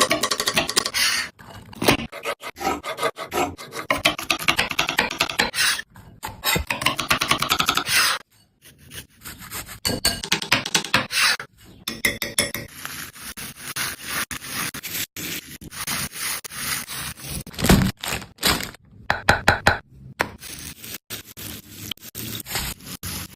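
Rapid repeated scraping strokes in runs with short pauses between them, from working a potato by hand during food preparation.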